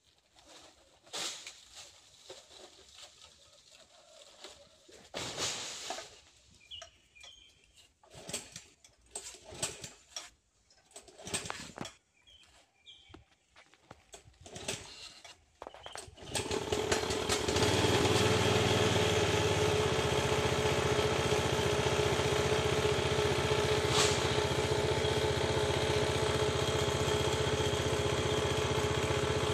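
Scattered rustles and knocks with a few faint bird chirps, then a little over halfway through a small engine comes in suddenly and runs steadily at an even pitch.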